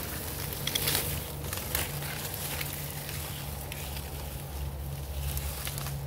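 Leaves and twigs of an orange tree rustling as a hand pushes through the branches, with light scattered clicks, over a steady low hum.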